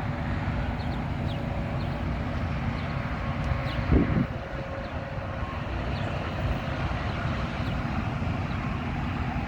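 Steady low rumble of road traffic, with one brief louder pitched sound about four seconds in.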